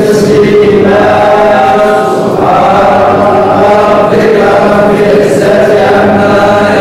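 A group of men chanting an Islamic invocation together in unison, in long drawn-out phrases.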